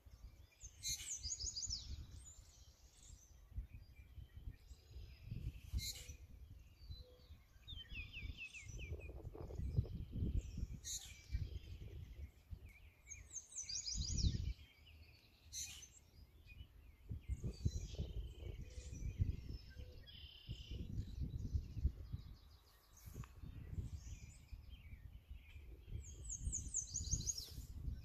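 Small songbirds singing, with quick trilled phrases repeated every few seconds, over a louder, uneven low rumbling noise.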